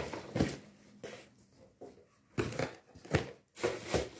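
Paper and packaging crinkling and rustling in a series of short strokes, with light knocks, as hands rummage through a box of items.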